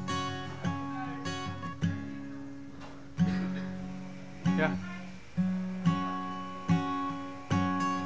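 Acoustic guitar playing a slow chord pattern with no singing, a chord struck about once a second and left to ring out before the next.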